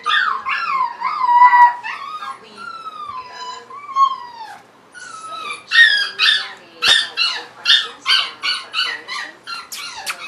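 Six-week-old Pomsky puppy whining and yipping. Drawn-out high whines slide down in pitch in the first half, then a quick run of short high yips comes at about three a second.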